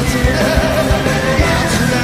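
A rock band with orchestral players performing live and loud, with drums keeping a steady beat under sustained melodic lines.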